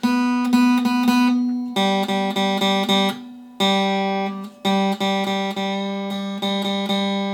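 Freshly restrung Fender acoustic-electric guitar strummed in chords, changing chord a few times with brief pauses between. The new strings are still stretching and slipping out of tune as it is played.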